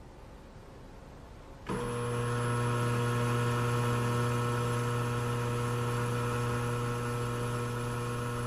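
Ultrasonic cavitation horn switched on in a water tank against a rock sample, starting abruptly about two seconds in with a steady buzzing hum over a hiss. The hiss and buzz come from bubbles forming and collapsing at the horn tip, the cavitation that drills into the rock.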